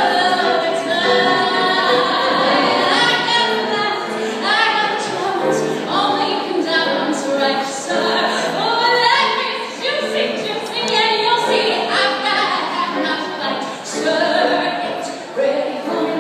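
A woman belting a Broadway show tune into a microphone, with piano accompaniment, in a series of held and gliding sung notes.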